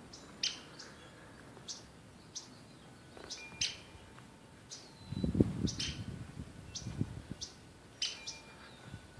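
Short, sharp, high bird chirps repeated at irregular intervals, about ten of them. A louder low rumble about five seconds in.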